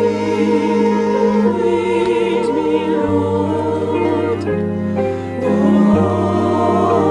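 Choir music: several voices singing held notes with vibrato over sustained low accompaniment notes that change every second or two.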